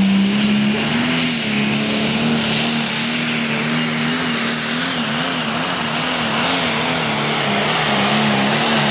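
Pro Stock pulling tractor's diesel engine running flat out under load as it drags the weight-transfer sled, a loud steady engine note whose pitch wobbles up and down for a couple of seconds midway through the pull.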